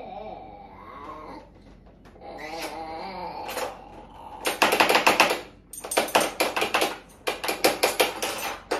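Metal spoons rattled and clinked together, a fast jingling clatter in three runs with short breaks, starting about four seconds in. Before that a baby makes a few soft babbling sounds.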